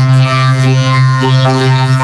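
Cartoon character dialogue run through a vocoder-style chord effect, so that the voices become a steady, buzzing drone held on one low pitch. The upper tones shift in short patches as the words go by.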